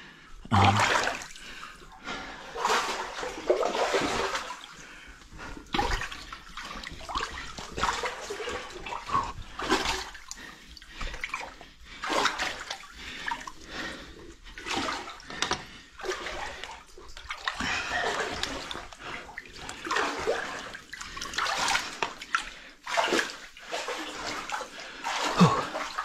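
Shallow water sloshing and splashing in irregular bursts as a person crawls through a low, flooded mine tunnel.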